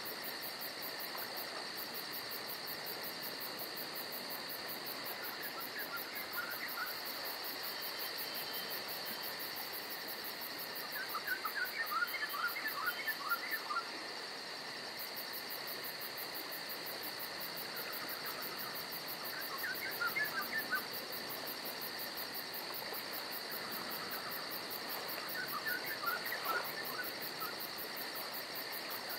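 A steady chorus of insects: a high, even drone with a fast pulsing trill above it. Over it a bird calls four times, each a quick run of short chirping notes lasting one to three seconds.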